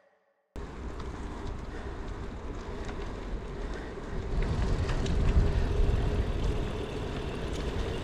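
Wind rushing over the microphone with road and tyre noise while riding a bicycle, starting abruptly about half a second in and growing louder from about four seconds in.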